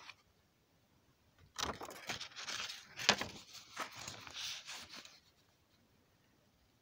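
Paper pages of a hand-drawn picture book being turned and handled: a rustling of paper starting about a second and a half in and lasting about three and a half seconds, with a few sharp crackles, the loudest about three seconds in.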